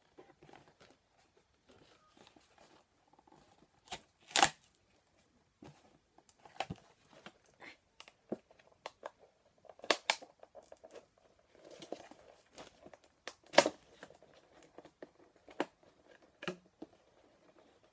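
Blister-pack toy packaging being pried and torn open: irregular crackling, crinkling and sharp snaps of plastic and card, the loudest about four, ten and thirteen and a half seconds in. The pack is a hard one to get into.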